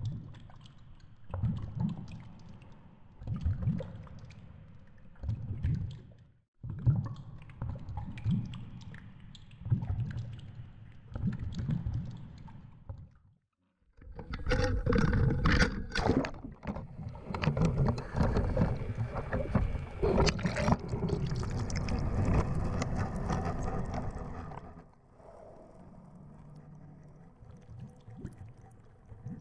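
Water rushing around a GoPro in its underwater housing, swelling in low surges about every second and a half. About halfway through the sound turns louder and fuller: wind and splashing sea water at the surface beside a drifting boat. This eases off a few seconds before the end.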